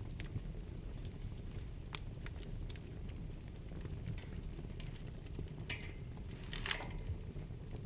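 Wood fire burning in a fireplace: a steady low rumble with scattered sharp crackles and pops, and two brief louder hissing crackles about two-thirds of the way through.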